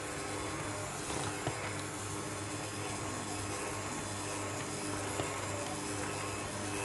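Bosch electric hand mixer running steadily with its dough hooks, a constant motor hum as it works flour into creamed margarine and powdered sugar for cookie dough.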